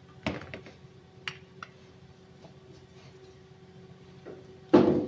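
Several sharp metallic clicks in the first second and a half as circlip pliers and small metal parts of a Perkins 1300-series piston assembly are handled, then one loud clunk near the end as a metal part knocks on the workbench.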